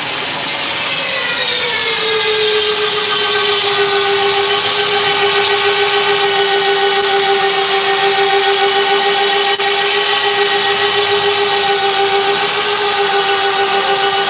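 Heavy-duty hand-held electric drill boring into a steel truck chassis rail. The motor gives a loud, steady whine that drops in pitch over the first two seconds as it comes under load, then holds.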